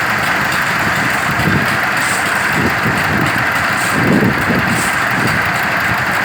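An engine running steadily, with a constant rushing noise over an uneven low rumble.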